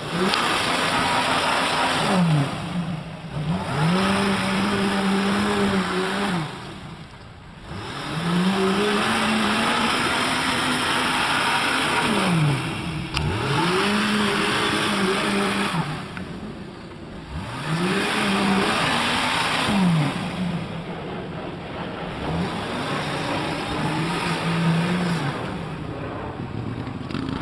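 Lifted Jeep's engine revving hard in repeated bursts, its pitch climbing, holding and dropping about six times, while its big mud tyres churn through deep mud.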